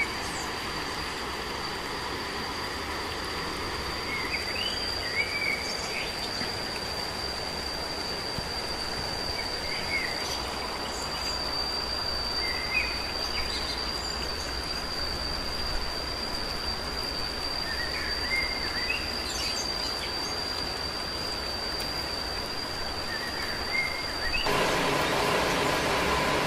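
Woodland ambience: a steady, high-pitched insect drone with birds chirping every few seconds over a soft hiss. About two seconds before the end it cuts to a louder steady rush of running water.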